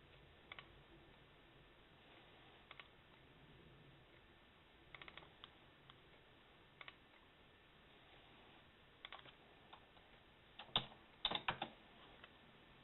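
Computer keyboard typing in slow, irregular keystrokes, single taps and short bursts with pauses between them, over faint room hiss; the loudest cluster of keystrokes comes near the end.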